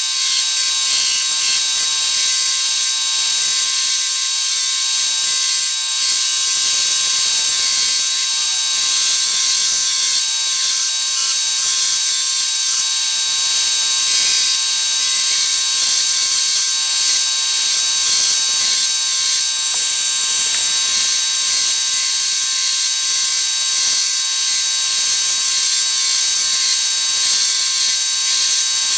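Belt sander running a fine surface-conditioning belt, with steel pliers held against the abrasive: a steady, loud whine and hiss that holds even throughout.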